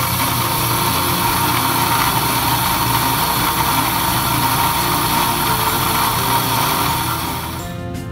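Commercial in-store coffee grinder running, grinding whole beans into a paper bag: a loud, steady grinding noise that stops a little before the end.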